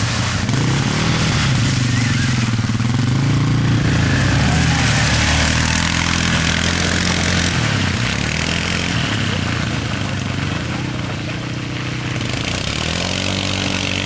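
ATV engines revving through deep mud, their pitch rising and falling several times as the throttle is worked, with a hiss of churning mud and water that is strongest in the middle.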